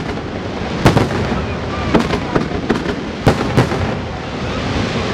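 Aerial firework shells bursting overhead: several sharp bangs, the loudest about a second in and two close together a little past three seconds, over a continuous noisy din from the display.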